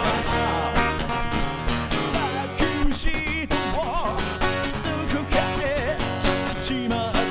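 A man singing a rock song over a strummed acoustic guitar, his sung line wavering and bending between held notes.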